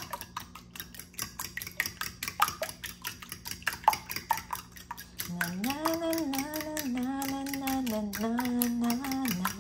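Metal fork whisking eggs in a ceramic bowl, its tines clinking rapidly against the bowl's sides. From about five seconds in, a voice hums a tune in held, stepping notes over the clinking.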